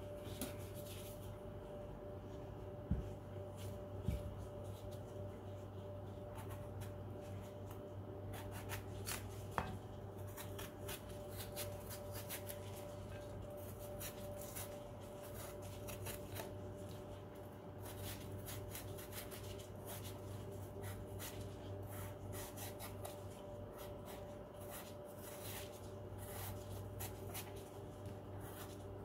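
Apple being peeled with a small knife by hand: soft, repeated scraping ticks of the blade cutting under the skin, with a few light knocks in the first several seconds, over a faint steady hum.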